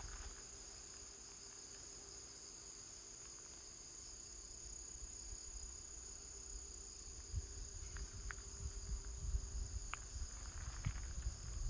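Steady, high-pitched chorus of insects chirping, with a few faint clicks and low thumps in the second half.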